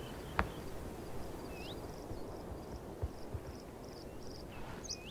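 Open-air tundra ambience: a low, steady background rush with scattered high bird chirps, the clearest about a second and a half in and near the end. There is a single sharp click about half a second in, and a faint run of quick high ticks in the middle.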